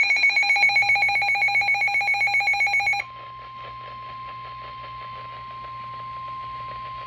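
Electronic emergency alert tones: a harsh, rapidly pulsing buzz for about three seconds, which cuts off and gives way to a quieter steady single-pitch tone, the NOAA Weather Radio warning alarm tone that comes before a severe thunderstorm warning.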